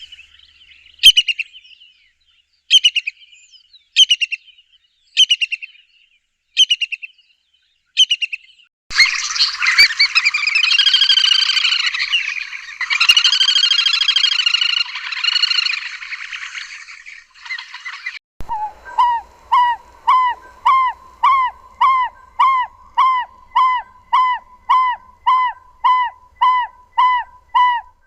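Recordings of three different wild bird calls in turn. First come sharp, short notes about once a second, then a rich, dense song, then an even run of pitched notes about two a second to the end.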